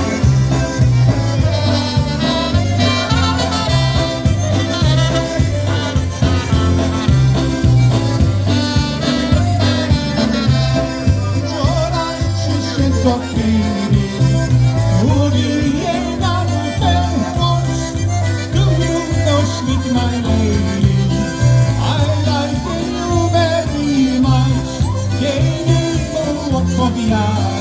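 Live polka band playing a polka, with a bouncing two-note bass line on an even beat under the melody.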